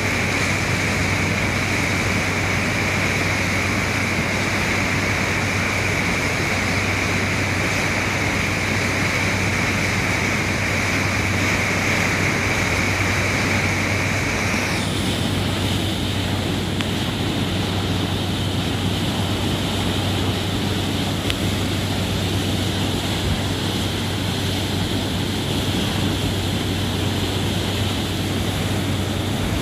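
SeaStreak ferry's waterjet drives under way: a steady loud rush of churning white water over a low engine drone, with a high whine that steps up in pitch about halfway through.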